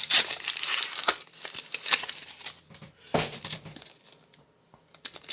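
Foil wrapper of a Pokémon trading card booster pack crinkling and tearing as it is opened by hand, with a sharp rip about three seconds in and a short pause before the crinkling starts again near the end.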